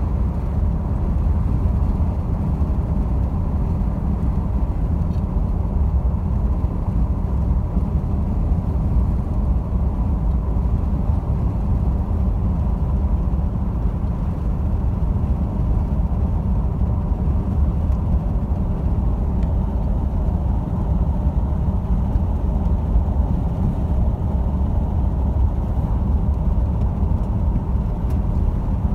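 Car driving along a road: a steady low rumble of engine and road noise heard from inside the vehicle.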